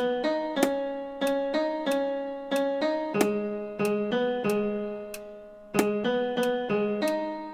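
A piano tone plays a single-line melody one note at a time, about three notes a second, each note striking and then fading. A little past the middle, one note is held for about a second before the run resumes.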